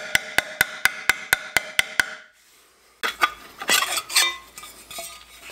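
Claw hammer striking sheet steel clamped in a bench vise to bend it into a U, about four ringing metallic blows a second. The blows stop about two seconds in, and after a short pause come irregular clanks and scraping as the bent steel is handled in the vise.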